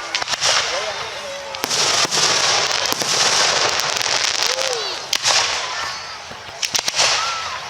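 Aerial fireworks display: several sharp bangs, with long stretches of crackling hiss starting about a second and a half in and again past the halfway point. Spectators' voices call out between the bursts.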